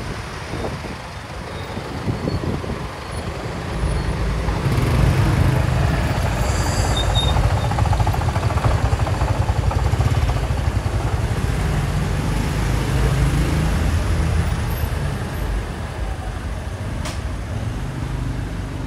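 Delivery truck's engine running, a low rumble that builds about four seconds in and eases off after about sixteen seconds, with a brief hiss around seven seconds.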